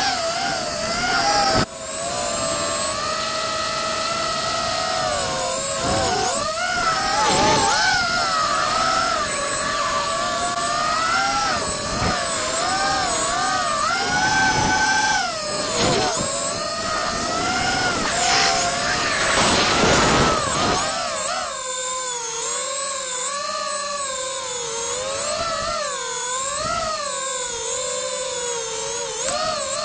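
FPV quadcopter's brushless motors and propellers whining. The pitch swoops up and down constantly as the throttle changes, with brief surges.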